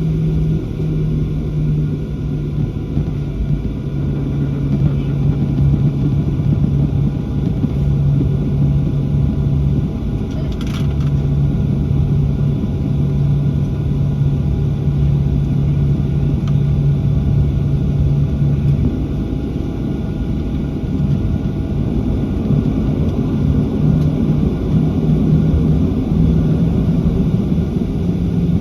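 Steady low hum and rumble inside the cabin of a Boeing 737-700 on the ground after landing, its CFM56-7B engines at idle while it taxis. A brief click sounds about eleven seconds in.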